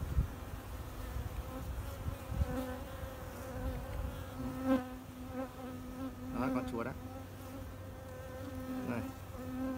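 Honeybees buzzing over an opened hive, a steady hum. Twice in the second half a bee flies close past, its pitch sweeping up and down.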